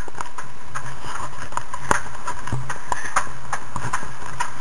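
Irregular sharp knocks and clinks, a few a second, from a homemade strongman yoke hung with metal kegs as it is carried along on foot, over a steady background hiss.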